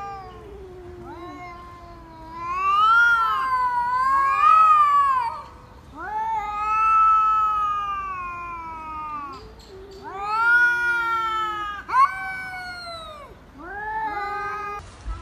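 Two domestic cats yowling at each other in a face-off: long, drawn-out caterwauls that rise and fall in pitch, about five in a row. The two voices overlap in the first few seconds, and there is a short sharp cry about twelve seconds in.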